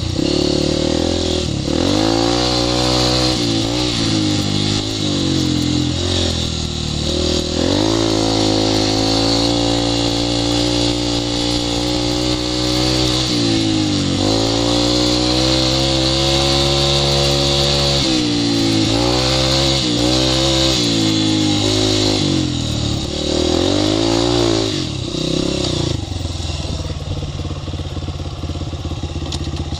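Dirt bike engine under way on a sandy trail, its pitch climbing and dropping over and over with throttle changes and gear shifts, with a run of quick rises and falls in the second half. Near the end the engine eases off to a lower, quieter note.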